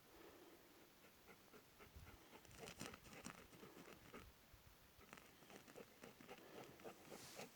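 A dog scratching and scrabbling faintly: irregular light taps and scratches, busiest about two and a half to three and a half seconds in and again near the end.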